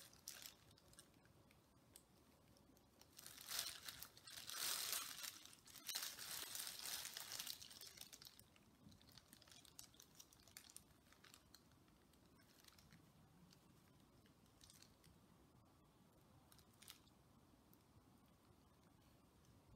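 Thin plastic gloves and a plastic drop sheet crinkling as hands work dye from a squeeze bottle into a rubber-banded fabric mask. The rustling is loudest from about three to eight seconds in, then drops to faint handling noise.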